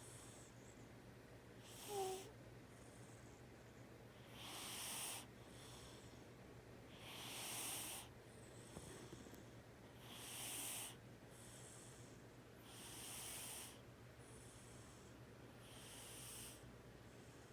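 Domestic cat snoring softly in its sleep: a hissy breath roughly every three seconds, each with a fainter one after it. A short, high squeak about two seconds in is the loudest sound.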